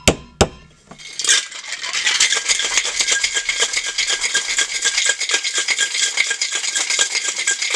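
Ice cubes rattling inside a Boston cocktail shaker (metal tin sealed over a mixing glass) being shaken hard, a fast steady rhythm that starts about a second in. Just before it, a sharp knock as the palm strikes the tin down onto the glass to seal it.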